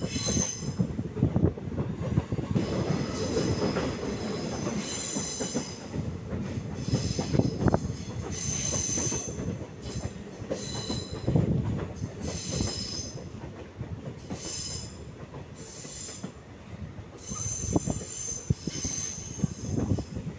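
Passenger train's ICF coach wheels squealing against the rails on a sharp curve: high-pitched squeals come and go over and over above the steady rumble and clatter of the wheels on the track.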